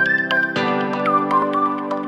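Background music: a gliding melody over held chords, with the chord changing about half a second in.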